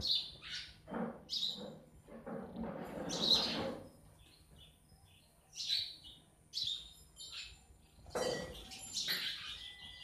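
House sparrows chirping: short, high chirps repeated irregularly, mixed with a couple of stretches of broader rustling noise.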